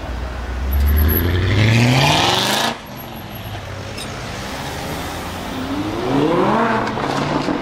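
BMW E39 M5's 4.9-litre V8 through an Eisenmann race exhaust, accelerating hard. The engine note rises for about two seconds and cuts off abruptly. After a quieter stretch it rises again near the end.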